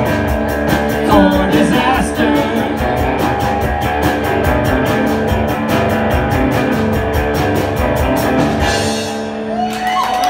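Live rock duo ending a song: electric guitar chords over a drum kit with steady cymbal strokes. The drums stop about nine seconds in and the final guitar chord rings out.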